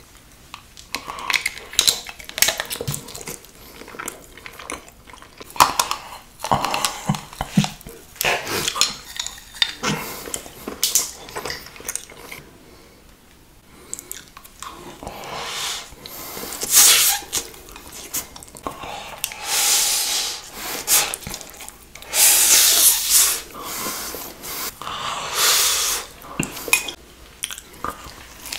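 Close-miked eating sounds: chewing and biting on black-coloured foods, first a spoonful of candy eyeballs, then black noodles and a chicken drumstick. Many short, clicky mouth sounds in the first half give way to longer, loud hissing bursts in the second half.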